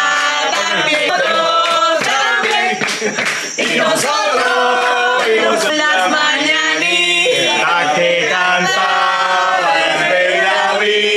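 Voices singing a birthday song over music, with long held notes.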